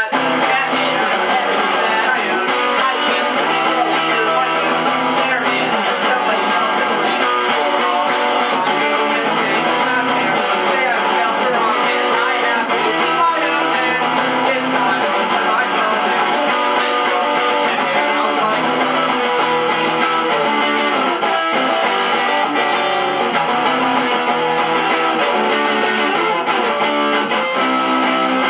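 Electric guitar strumming pop-punk chords, the chords changing every second or two, with no singing.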